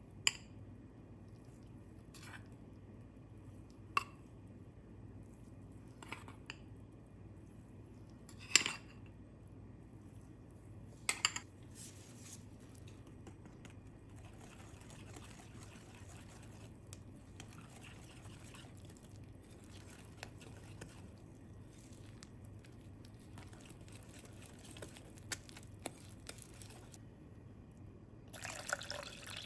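Wire whisk mixing flour into pancake batter in a glass bowl: several sharp clinks of metal on glass in the first dozen seconds, then soft, steady scraping and stirring. Near the end, water pours from a glass jug into the batter.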